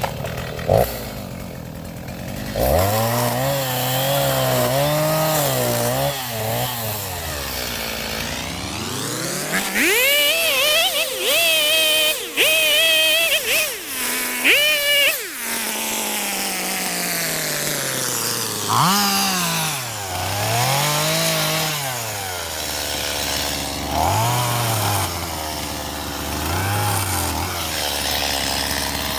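Gas chainsaw revving up and down repeatedly while bucking a felled tree, falling back to idle between cuts, with one long high-revving cut partway through.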